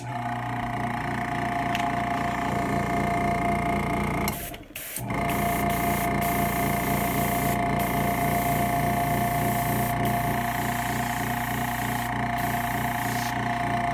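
Small airbrush air compressor switching on and running steadily, a motor hum with a steady whine, with a short dip about four and a half seconds in.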